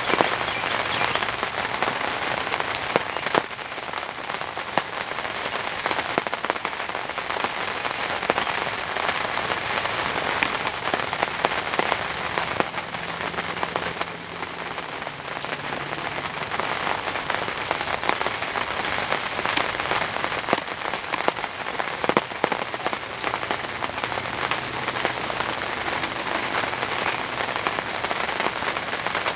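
Steady heavy rain falling, with individual drops ticking sharply close by.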